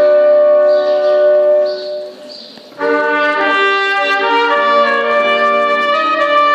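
Klezmer band of trumpet, clarinet and accordion playing, with the trumpet prominent. A long held note fades out about two seconds in, and after a brief lull the tune starts up again a little before three seconds.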